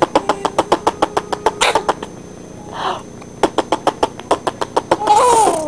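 A baby laughing: runs of rapid staccato pulses, about eight a second, broken by short breathy gasps, ending in a loud high squeal that rises and falls near the end.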